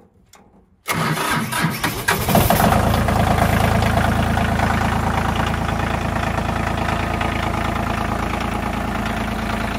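Ford 1520 tractor's three-cylinder diesel engine being cranked by the starter about a second in, catching and settling into a steady idle about two seconds later. It is the first start after new hydraulic lines were fitted, and the running engine is thought to be priming the hydraulic system and building pressure.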